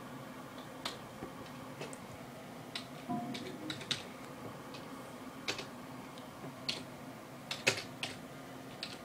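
Computer keyboard keys pressed one at a time in slow, uneven clicks as a short chat message is typed, with a couple of louder key presses near the end.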